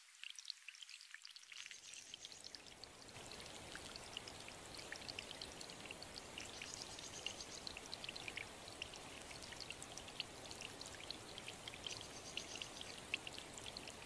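Running water: at first a thin, splashy trickle, then from about two seconds in a fuller, steady rush of falling water with many small splashes.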